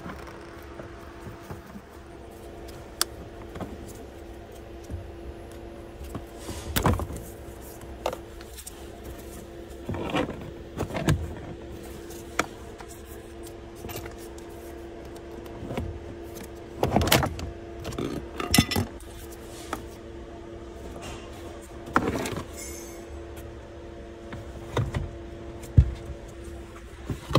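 Vauxhall Corsa E plastic lower dashboard trim being unclipped and handled, giving scattered sharp clicks and knocks over a steady background hum.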